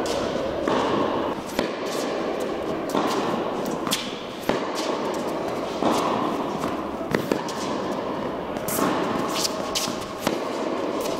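Tennis rally in an indoor hall: sharp pops of rackets striking the ball and the ball bouncing, one every second or two, echoing over a steady background hum.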